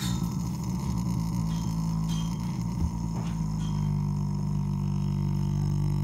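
A young stallion lying in straw makes a long, steady, low groaning drone through his nose and throat, the kind of snoring grumble he makes while resting. It starts abruptly and holds one even pitch throughout.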